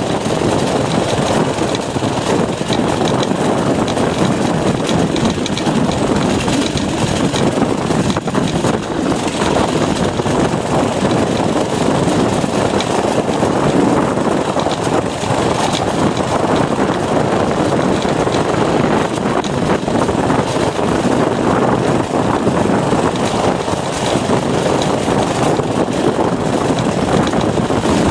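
Baja mini bike's small engine running at a steady speed as the bike is ridden.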